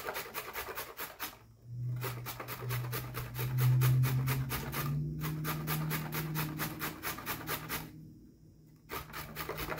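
A carrot being grated on a stainless steel box grater: quick, even rasping strokes, about five a second, with short pauses about a second and a half in and again about eight seconds in.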